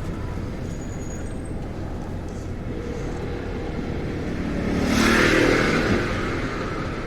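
Steady low rumble of a road vehicle in motion, with a louder rushing swell about five seconds in that fades after about a second.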